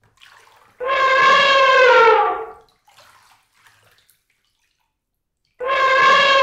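Elephant trumpeting: two long, brassy calls about five seconds apart, each sliding slightly down in pitch.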